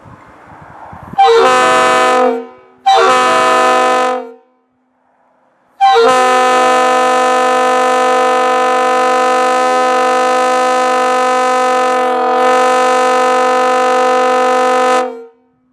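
Multi-chime locomotive air horn sounding several notes at once: two short blasts followed by one long blast of about nine seconds.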